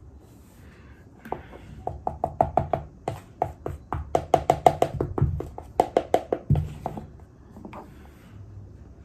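Close-miked chewing of a big spoonful, the packed mouthful making loud squeaking sounds with every bite. Several squeaky crunches a second start about a second in and stop about two seconds before the end.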